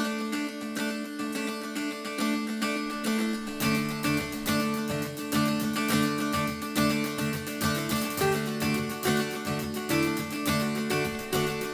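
Background music led by plucked strings; a bass line with a steady beat comes in about three and a half seconds in.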